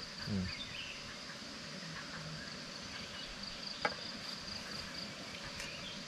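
Insects droning steadily at one high pitch over a faint background hiss, with a short vocal sound just after the start and a single sharp click about four seconds in.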